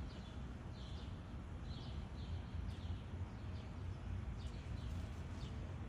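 Gray catbird singing: a loose string of short, high, falling notes at uneven intervals, over a steady low outdoor rumble.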